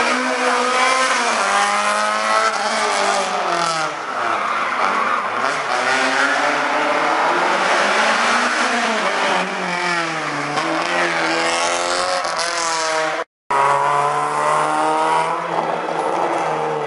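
Rally car engines revving hard, the pitch climbing and dropping again and again through gear changes as the cars accelerate along the stage. The sound cuts out briefly about 13 seconds in, and another car's engine picks up after it.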